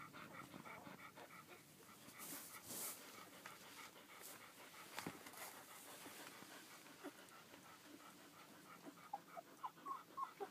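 Adult collie panting quickly and steadily, faint, about four breaths a second. A few short high squeaks come near the end.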